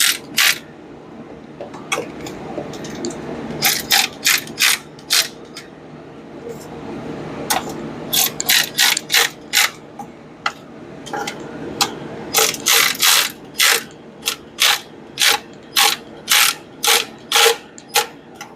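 Hand ratchet wrench clicking as a bolt is turned, in runs of short back-and-forth strokes about two or three a second with brief pauses between runs.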